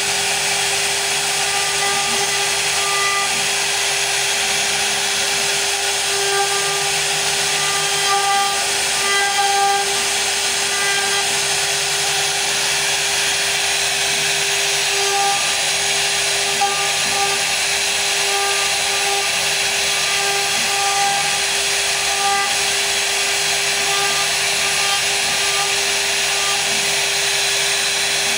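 CNC router spindle running with a steady whine while its bit cuts into wood, over a continuous cutting hiss. Fainter higher tones come and go as the cut changes.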